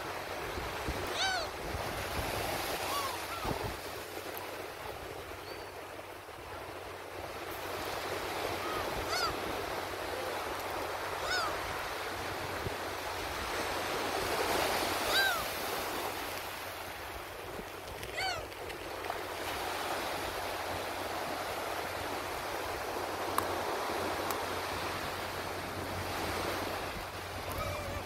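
Waves washing on the shore, rising and falling steadily, with black-tailed gulls giving about half a dozen short calls that rise and fall in pitch.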